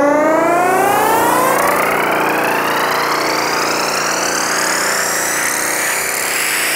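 Electronic music build-up: a synthesizer sweep climbing steadily in pitch over a wash of noise.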